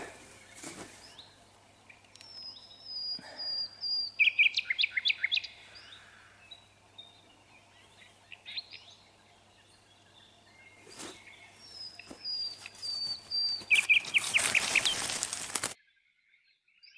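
Songbird singing outdoors in two phrases, each a thin high whistle followed by a quick run of notes, with a few soft knocks and rustles between and a burst of rustling just before the sound cuts off near the end.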